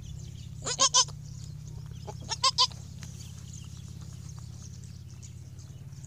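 Newborn goat kid bleating in two short bursts of high calls, about a second in and again about two and a half seconds in, over a steady low hum.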